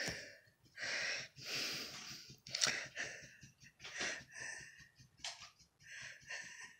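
Dog sniffing and snuffling right at the phone's microphone: a string of short, noisy breaths in and out.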